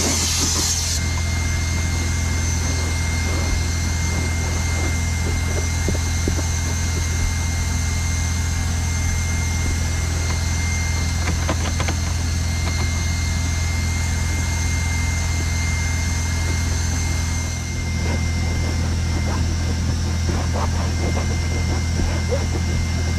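Carpet extractor's spray hisses briefly and stops about a second in; the extractor's motor then keeps up a steady hum with a thin high whine, dipping briefly past the middle. A few faint scuffs come from a microfiber towel wiping the rubber floor mat.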